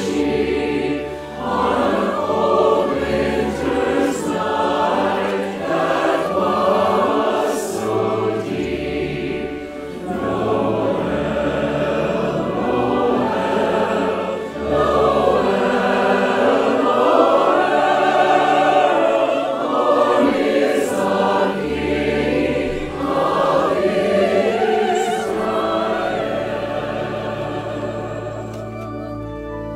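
A large virtual choir of United Methodist singers, mixed from home recordings, singing a Christmas medley over sustained low instrumental accompaniment; the sound softens over the last few seconds.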